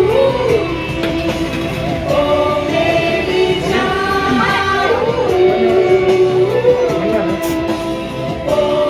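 Background song with a singing voice over instrumental accompaniment.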